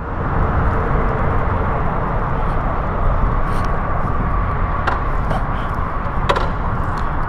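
Aprilia Tuono V4 1100's V4 engine idling and running at low speed, a steady low rumble, with a couple of short clicks about five and six seconds in.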